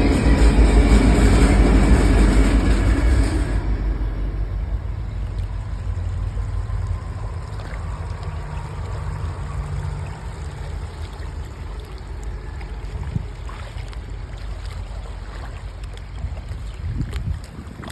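A passing motorboat's engine, loud at first with a rushing hiss that drops away after about three seconds, then a low rumble that slowly fades as the boat moves off.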